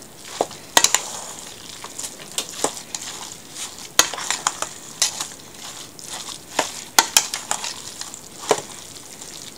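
A spoon stirring a wet mixture of ground cod, onion and grated carrot in a stainless steel bowl, working in freshly added breadcrumbs: a soft, moist scraping with irregular clinks of the spoon against the metal bowl.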